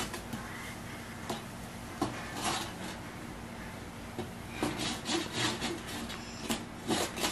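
A baby's hands scratching and rubbing at pieces of tape stuck to a baking tray, in irregular scraping bursts with small clicks, busiest in the second half.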